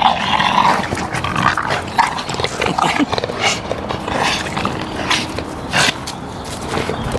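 A German shepherd and a Boston terrier making play-fight noises as they tug at a ball held between their mouths: a quick, irregular run of short, noisy sounds.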